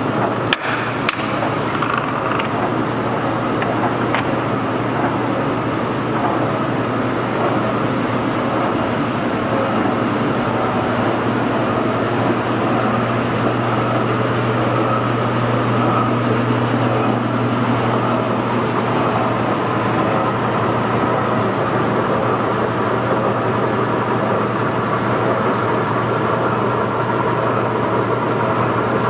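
Large Stanko engine lathe (Ryazan model 165) running, a steady mechanical hum of its drive motor and headstock gearing. A few sharp clanks near the start.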